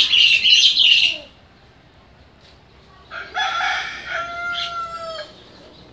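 Rooster crowing twice: a harsh call in the first second, then a longer crow about three seconds in that ends on a held note.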